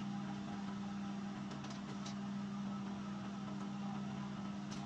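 Electric egg incubator running with a steady low hum, with a few faint light clicks.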